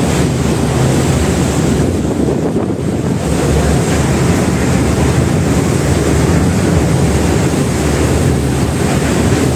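Ship's wake churning and rushing alongside a moving ship, with heavy wind buffeting the microphone; a loud, steady wash of noise.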